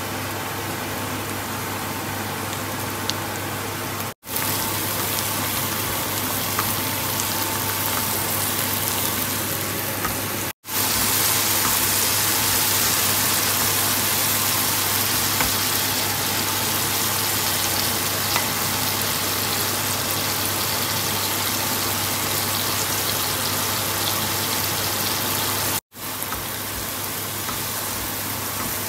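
Oil sizzling in a wok as sliced onions and mushrooms fry, with a spatula stirring them now and then. The steady sizzle breaks off sharply three times and is loudest through the middle stretch.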